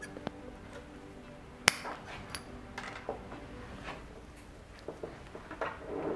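Small metal hand tool clicking as it snips in the foliage of a Japanese white pine bonsai, with one sharp snip a little under two seconds in and lighter clicks after it. Pine needles rustle under the hands near the end.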